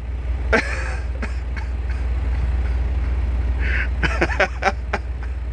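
Truck engine idling with a steady low rumble, heard from inside the cab. A few short throaty sounds rise above it, about half a second in and again around four seconds in.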